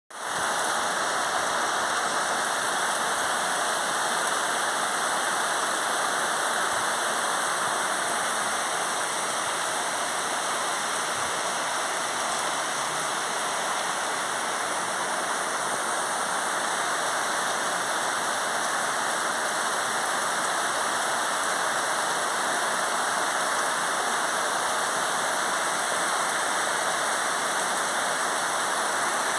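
Heavy rain falling steadily, an even hiss of downpour that does not let up.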